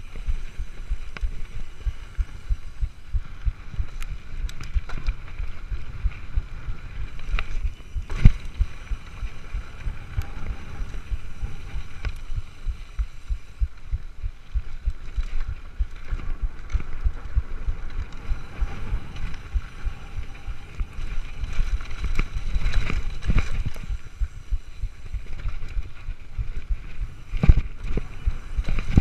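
Mountain bike descending a rough dirt trail: constant rumble and rattle of the tyres and bike over bumps, with sharp knocks from harder hits, the loudest about eight seconds in. Near the end it clatters onto wooden planks.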